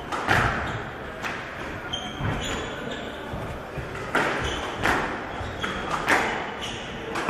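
Squash rally: the ball hit sharply by rackets and off the walls every half second to a second, each hit echoing in the hall, with short squeaks of court shoes on the wooden floor between hits.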